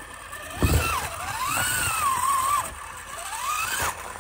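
Brushless pancake motor of an SCX24 micro RC crawler whining, its pitch rising and falling as the throttle is worked over the rocks. There is a thump about two-thirds of a second in.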